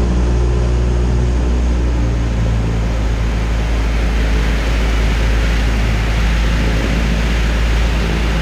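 Cessna 172 Skyhawk's piston engine and propeller droning steadily on final approach, heard inside the cabin. A hiss of rushing air rises a little a few seconds in.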